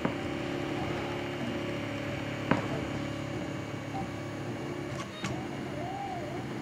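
Prusa i3 RepRap 3D printer running mid-print: a steady machine hum with a few sharp clicks, and near the end the stepper motors whining in short rising-and-falling sweeps as the print head moves back and forth.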